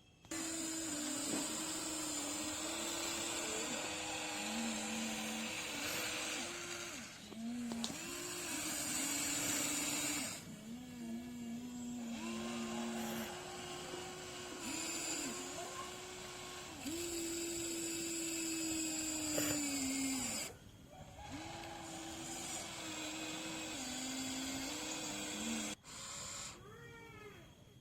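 Huina 1593 RC excavator's electric motors and gearboxes whining as it digs. The pitch steps up and down and sags briefly each time a function starts, stops or takes load. It pauses briefly a few times.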